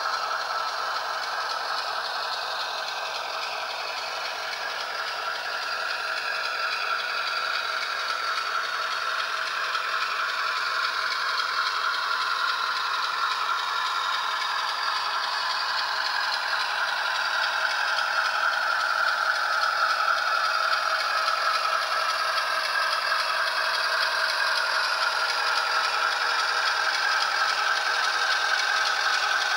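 Athearn model train running on layout track, a BNSF diesel locomotive pulling tank cars: a steady mechanical whir of the locomotive's motor and gearing with the wheels rolling on the rails, its pitch drifting slowly and growing louder after the first few seconds as the train rounds the curve toward the microphone.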